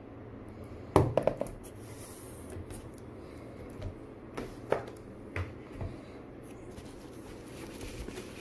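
Packaging being handled on a table: a cardboard box and a plastic postal mailer. There is a loud sharp knock with a quick rattle of clicks about a second in, then several lighter taps and clicks, over a faint steady hum.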